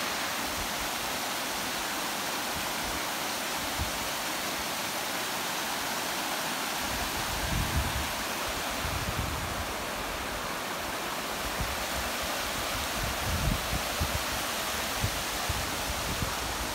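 Mountain meltwater stream rushing and splashing over rocks, a steady hiss. From about seven seconds in, irregular low thumps come in under it.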